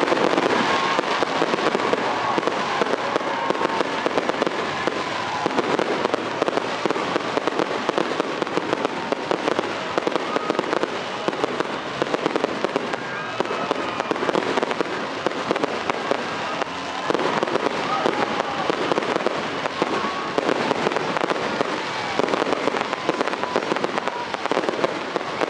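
Fireworks display: aerial shells bursting overhead in a dense, unbroken run of bangs and crackling.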